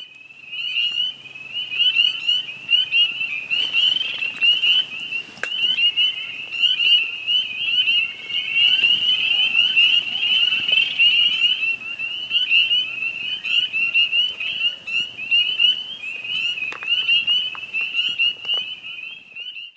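Dense chorus of frogs: many short, high-pitched calls overlapping into a constant din.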